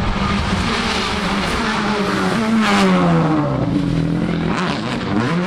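Rally car engine at full throttle. Its pitch falls steeply about halfway through, then climbs again near the end as the car accelerates.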